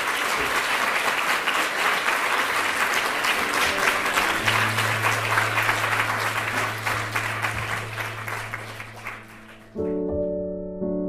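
Audience applauding with dense, steady clapping. About halfway through, a low held music note comes in underneath. Near the end the clapping cuts off abruptly as gentle piano music starts with one chord, then another about a second later.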